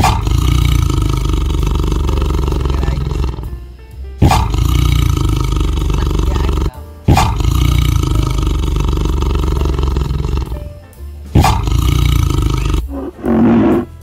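Tiger roaring, four long roars each starting suddenly, one every three to four seconds. A shorter, different animal call follows near the end.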